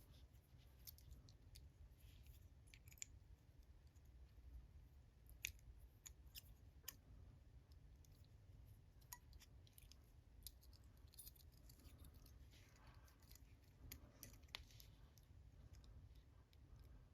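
Faint scattered clicks and light scraping of small metal lock parts being handled, as a plug follower is worked into a small four-pin pin-tumbler cylinder to push the plug out. The clearest click comes about five and a half seconds in, and there is a stretch of scraping shortly before the end.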